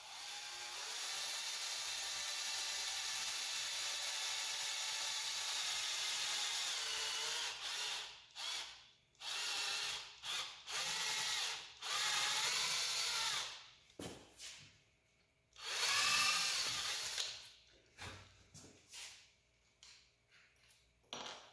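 Cordless drill boring a small hole into a rifle's carbon-fibre composite stock. It runs steadily for about seven seconds, then in a series of short trigger bursts, the motor speeding up and slowing down, until it stops near the end.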